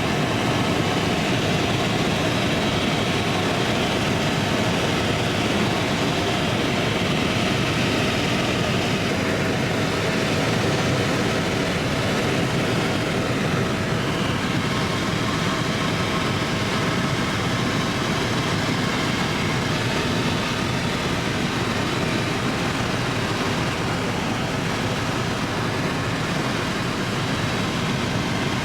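Helicopter in flight: steady engine and rotor noise heard from inside the cabin.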